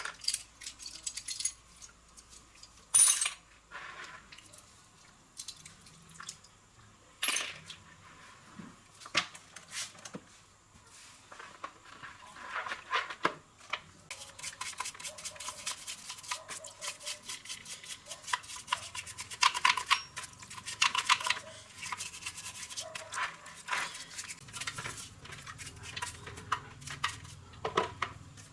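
Small metal parts clinking and knocking in hand. About halfway in this turns into a dense run of rapid clicking and rasping, like brushing or scraping a metal part.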